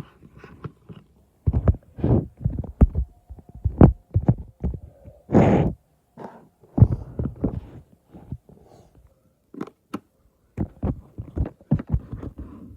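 Hands squeezing and poking slime, giving irregular soft thuds and squelches, with a longer squelch about five and a half seconds in.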